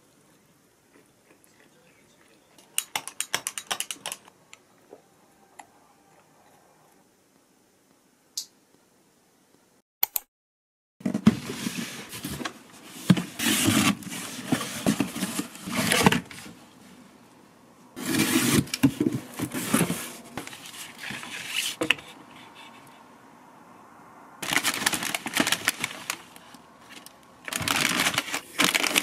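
Plastic snack bags crinkling and cardboard box flaps rustling and scraping as groceries are unpacked from a delivery box, in several loud bursts through the second half.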